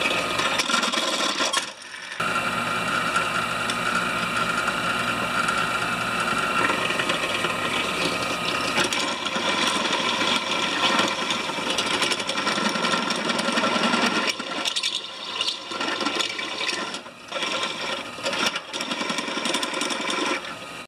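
Bench drill press running with a step drill bit cutting through a steel plate: a steady motor whine over the grinding of the bit in the metal. The sound drops out briefly about two seconds in and comes and goes over the last several seconds.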